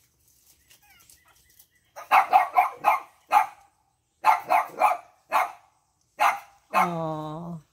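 Pug puppies yapping during rough play, clusters of quick short yips in a row, followed near the end by one longer, drawn-out call.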